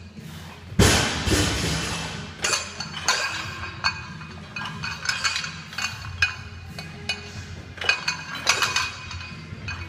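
Loaded barbell clanking during hang power cleans: a sharp clank about a second in as the bar is caught, then scattered clinks of the plates shifting on the sleeves as it is lowered and lifted again, over background music.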